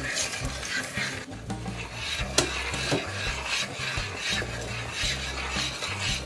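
A spoon or whisk stirring a thick béchamel-style custard of butter, flour and milk in a pot, scraping against the pan in repeated strokes. There is a sharp knock about two and a half seconds in.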